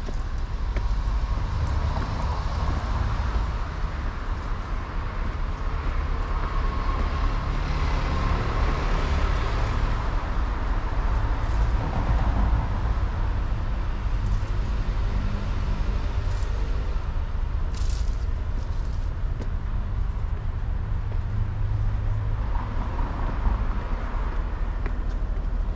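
Street traffic ambience: vehicles passing with a steady low rumble of engines and tyres, swelling as cars go by, with a brief hiss about two-thirds of the way through.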